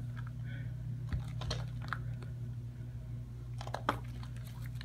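Soapy hands rubbing together in thick, creamy lather, making irregular small wet squishes and clicks. A steady low hum runs underneath.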